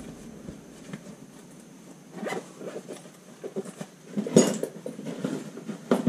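Scattered light clicks and rustles of something being handled, with one sharp tap about four and a half seconds in.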